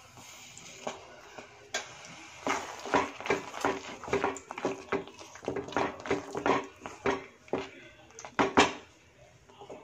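Wooden spatula stirring thick, mashed pav bhaji in a non-stick pan, knocking and scraping against the pan about two to three times a second, with the loudest knocks near the end.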